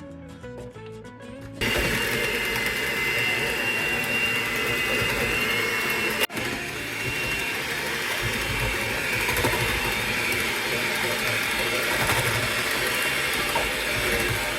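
Electric mixer running steadily with a whining tone, beating banana-bread batter; it starts about two seconds in, after soft music, and drops out for a moment near the middle.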